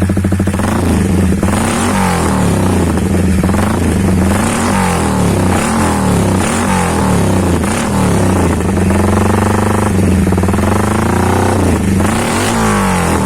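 Honda CB150R single-cylinder engine breathing through a BSS round aftermarket muffler with a half-baffled core, revved repeatedly from idle in short throttle blips, with a longer held rev about nine seconds in.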